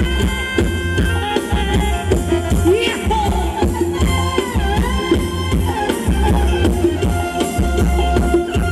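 Live Thai ramwong dance-band music over loudspeakers: a steady drum beat with rattling percussion under a sustained lead melody that bends in pitch.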